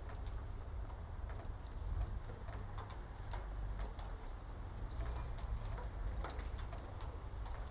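Scattered sharp clicks and taps at uneven intervals, a few each second, over a steady low hum.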